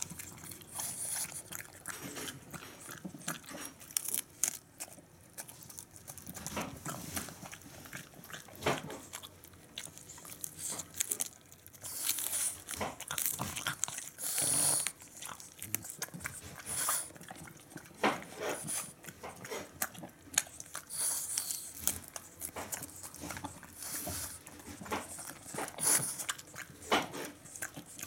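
French Bulldog biting and chewing a hand-held napa cabbage leaf, with irregular crunches throughout.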